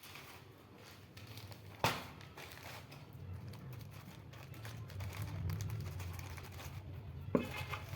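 Packaging crinkling and rustling as it is handled and opened, with two sharp clicks, one about two seconds in and one near the end, over a low steady hum.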